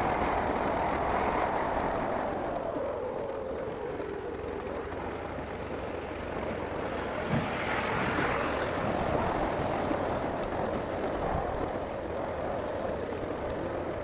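Motorcycle riding along a rough dirt road: engine and road noise, falling away over the first few seconds and swelling again as a dump truck is passed about eight seconds in.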